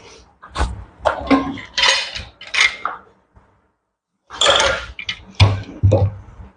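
Metal clinking and knocking in several short clusters, typical of clamps and a metal bending strap being handled as a steamed Windsor chair comb back is bent and clamped onto a bending form.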